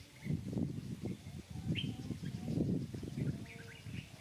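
Short, high birds' chirps, each dropping quickly in pitch, repeated several times over a louder low rustling noise.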